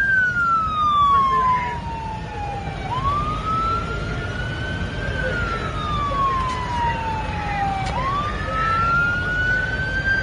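Police car siren on a slow wail, gliding up and down in pitch about every five seconds over a low steady rumble.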